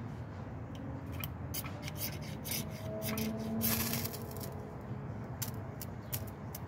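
Ferrocerium rod scraped with a striker: a run of short, sharp scrapes, with one longer stroke about three and a half seconds in, throwing sparks onto denim char cloth.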